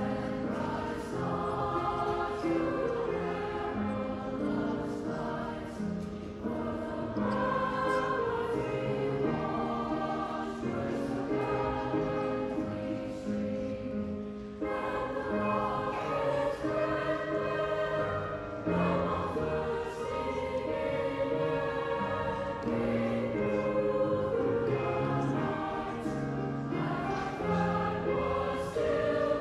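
A school choir of young voices singing a song in unison.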